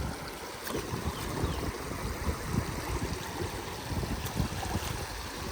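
River water flowing and lapping at the bank, with a low, uneven rumble of wind on the microphone.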